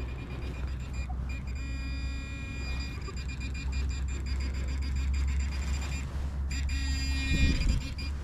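Handheld metal-detecting pinpointer probed in a dug hole, buzzing twice: a buzz of about a second near two seconds in and a shorter one near the end, signalling metal close to its tip. A steady low rumble sits underneath.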